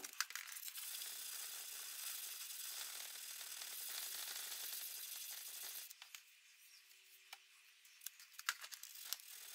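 Faint sandpaper rubbing on a knife blade during hand sanding: a light, fine hiss that stops about six seconds in. A few soft clicks follow near the end.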